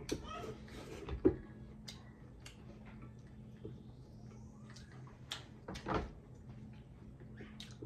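Eating sounds from hands-on eating of deep-fried chicken drumsticks and rice: chewing, fingers working rice against plates, and scattered light clicks. A sharp knock comes about a second in and another about six seconds in.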